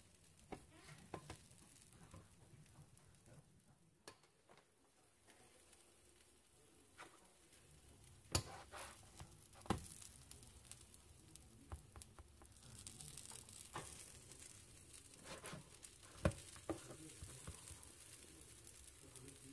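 Pupusas sizzling faintly on a nonstick electric griddle as their cheese filling bubbles and oozes out. A few sharp pops or clicks stand out, and the sizzle grows a little louder past the middle.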